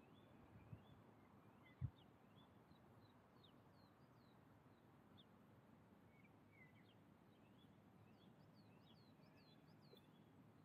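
Faint birdsong: many short, high chirps scattered throughout, with one low thump about two seconds in and a smaller one just before it.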